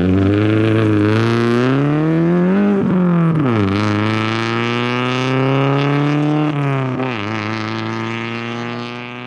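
Rally car engine accelerating hard, its pitch climbing and dropping at gear changes about three seconds and seven seconds in, then fading as the car drives away.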